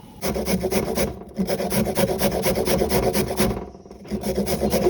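Rapid rasping and scraping, broken briefly about a second in and again near the end.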